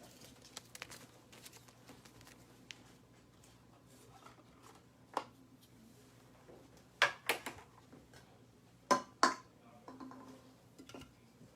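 Trading cards and their packaging being handled on a table: faint rustling with scattered sharp taps and clicks, the loudest coming as two quick pairs about seven and nine seconds in.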